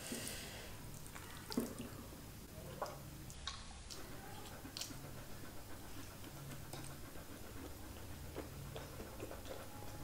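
Faint wet eating sounds: butter naan dipped in paneer curry gravy and taken into the mouth, then chewed, with scattered soft clicks and smacks.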